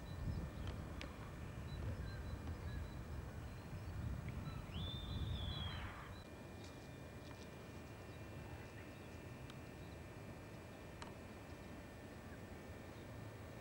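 Outdoor ambience on an early-1990s Video 8 camcorder's built-in microphone: an uneven low rumble, heavier for the first six seconds, then quieter. About five seconds in there is one brief high whistle-like call, with a few faint clicks scattered through.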